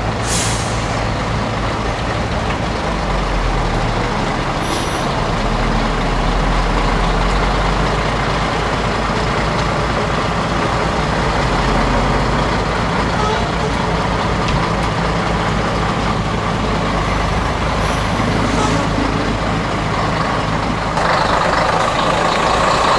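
Classic Scania trucks' diesel engines running as the trucks move slowly past. There are short air hisses about half a second in and again around five seconds, and the engine sound grows louder near the end as another truck approaches.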